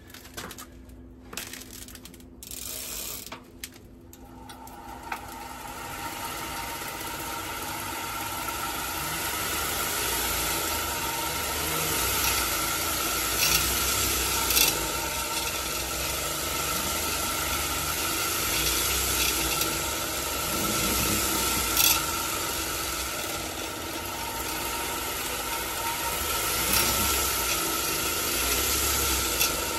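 A pedal-driven homemade automatic bicycle gear shifter, a spring-loaded pulley assembly on a bent nail, spinning up after a few knocks and then whirring and rattling steadily with a constant whine and a few sharp clicks. The bent shaft makes the assembly wobble and vibrate.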